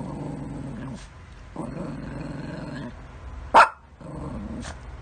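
A small white dog making low, drawn-out growly grumbles in three stretches, as if answering back, with one sharp, loud bark about three and a half seconds in.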